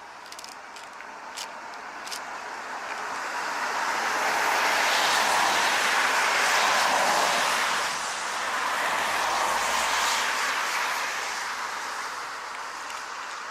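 A vehicle passing on a nearby road: a broad rush of tyre and engine noise that swells over several seconds, dips briefly, swells again and fades away.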